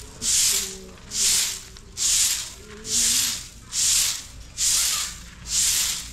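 A broom sweeping sand in even strokes, about one stroke a second.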